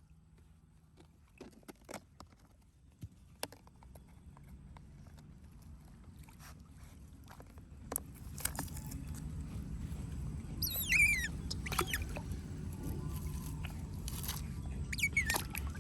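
Low water sloshing and splashing with scattered small clicks, building from about four seconds in. Two brief high squeaks fall steeply in pitch, one past the middle and one near the end.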